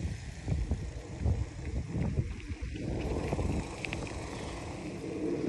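Bicycle rolling along an asphalt road, with wind buffeting the microphone as an uneven low rumble that swells and fades.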